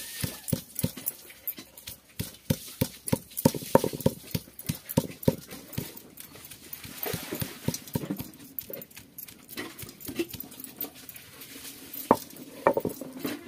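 Stone pestle pounding roasted dry fish with onion and garlic on a flat grinding stone: a run of knocks, about two or three a second, growing sparser in the second half.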